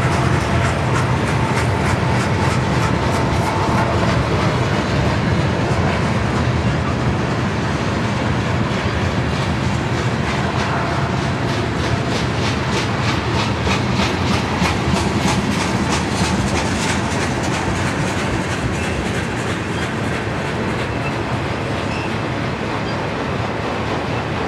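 Freight train cars rolling past: a steady rumble of steel wheels on rail with a rapid, regular clickety-clack, plainest in the middle.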